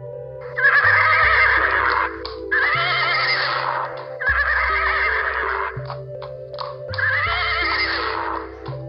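Horse whinnying four times, each call wavering and about a second and a half long, with a few short clicks between the third and fourth. Soft sustained synthesizer music plays underneath.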